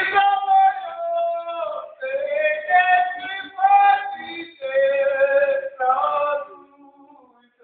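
A voice singing in long held notes, phrase after phrase with short breaks between them.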